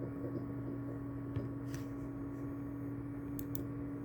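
Steady low electrical hum with a few faint clicks scattered through it.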